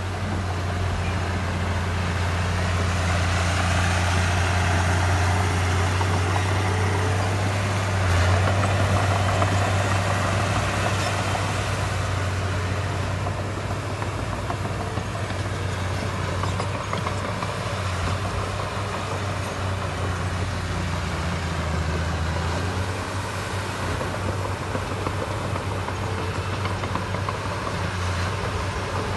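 Heavy diesel engine of earthmoving machinery running with a deep steady hum. It grows somewhat louder over the first several seconds, then holds steady.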